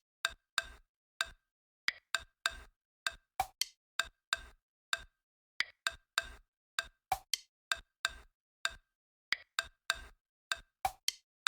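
A rhythmic series of short, sharp percussive clicks, about two a second, in a pattern that repeats every few seconds, with silence between the strokes.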